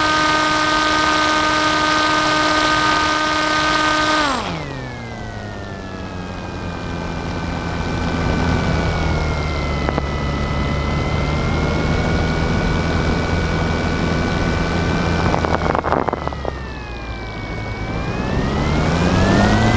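FPV aircraft's motors and propellers whining steadily at a high pitch; about four seconds in the throttle is cut and the pitch drops sharply to a lower whine with rushing air. Near the end, after a brief crackle, the throttle comes back up and the pitch rises again.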